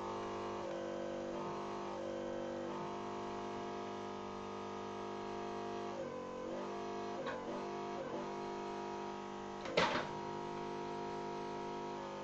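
Electric motor driving a hydraulic pump on a homemade 24-volt backhoe, running with a steady whine. The pitch sags briefly several times as the control valves are worked and the pump takes load. A single sharp knock comes near the end.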